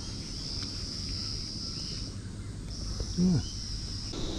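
A steady, high-pitched drone of insects, broken briefly about two seconds in, over a low rumble. About three seconds in there is a short, louder low sound that falls in pitch.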